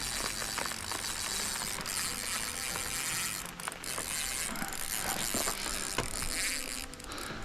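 Fishing reel's drag ticking so fast that it blurs into a buzz as a hooked carp strips line off on a powerful run.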